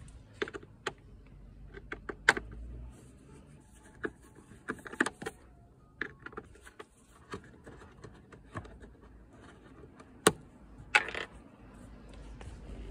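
Hand screwdriver working the screws out of plastic dashboard trim: irregular clicks, scrapes and small rattles, with two louder clicks about ten and eleven seconds in.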